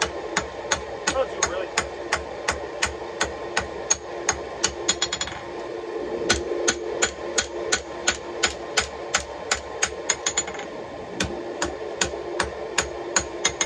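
Hand hammer striking a red-hot fossil Damascus Bowie blade on the anvil, about three blows a second, with a steady ring from the anvil under the blows. Twice, about five seconds in and again near ten seconds, a quick run of lighter taps breaks the rhythm.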